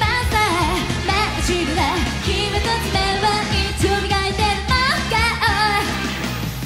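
A woman singing a J-pop idol song solo into a microphone over its full backing music, in a live stage performance.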